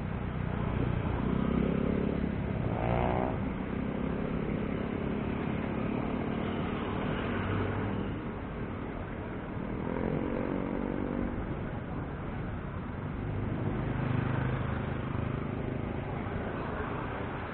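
Busy road traffic heard from a bicycle: motorcycle engines passing close by over a steady background of traffic noise. One engine rises sharply in pitch as it accelerates about three seconds in, and others pass about ten and fourteen seconds in.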